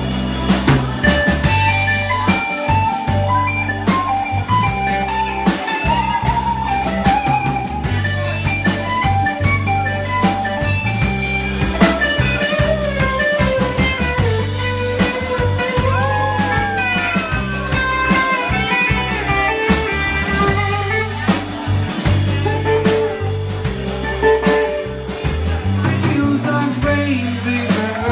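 Live blues band playing an instrumental stretch: electric guitars over a bass line and drum kit, with a guitar lead whose notes bend up and down about two-thirds of the way through.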